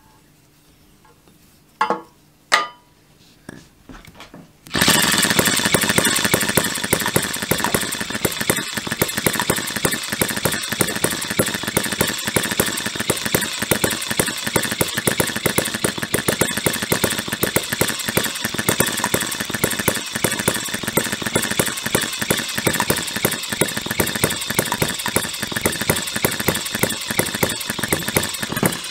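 HM-01 miniature hit-and-miss model engine being pull-started by a cord on its flywheel: two sharp pops about two seconds in and a few weaker ones, then it catches about five seconds in and runs on with a rapid, uneven stream of firing pops.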